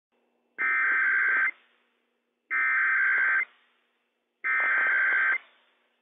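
Three bursts of the EAS/SAME digital header, the harsh data buzz that opens a NOAA Weather Radio Required Weekly Test. Each burst lasts about a second, with about a second between them, and each tails off briefly. The bursts carry the test's coded header: originator, event code, area and time.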